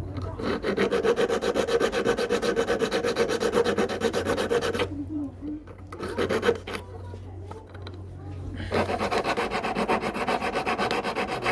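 Quick, even rasping strokes of a hand file or abrasive rubbing on a silver ring. They break off about five seconds in, with only a few scattered strokes, and pick up again for the last few seconds.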